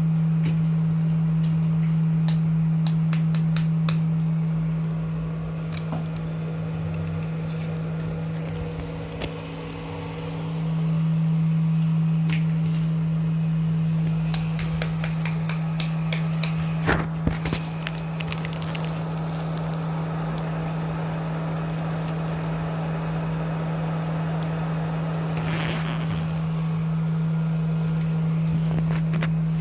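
Beaten eggs cooking in oil in a pan, with a light crackle, over a steady low hum. A few clicks and knocks, loudest about 17 seconds in.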